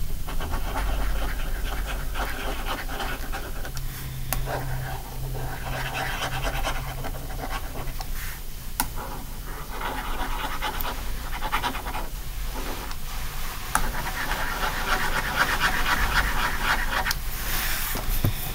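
Panting breaths close to the microphone, coming in spells of a couple of seconds with short pauses between, over a steady low hum.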